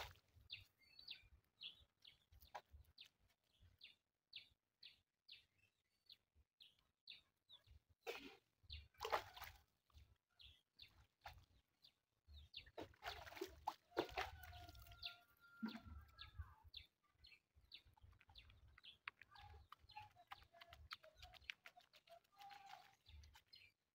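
Faint rural birdsong: small birds chirping over and over, with a wavering call from a chicken in the second half. A couple of brief splashing, scrubbing sounds come from bare feet being washed with water on a stone.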